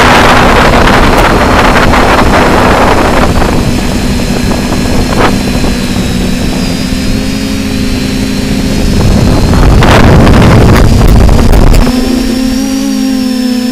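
A camera drone's electric motors and propellers humming steadily, with a thin high whine above, while wind rushes over the onboard microphone. The wind is heaviest at the start and again a little before the end, then drops away, leaving the motor hum clear.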